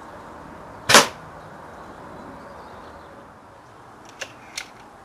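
A single sharp shot from a .22 Webley Stingray air rifle about a second in, then two light clicks near the end.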